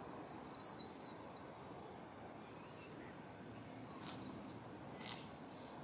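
Faint outdoor ambience: a steady low hush with a few short, high bird chirps, the clearest one a little under a second in.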